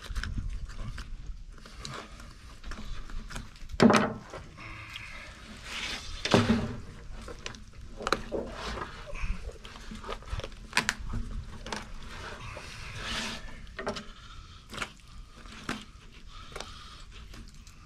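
Knife cutting and scraping as an armadillo's bony shell is worked free of the carcass like a hide, in scattered clicks and rasps. Two louder noises come about four and six seconds in.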